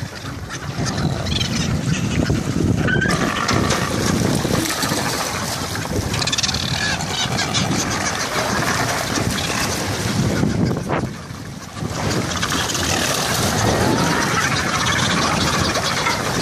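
Wind on the microphone and sea water washing around a small boat, with seabirds splashing as they jostle alongside. The sound dips briefly about two-thirds of the way through.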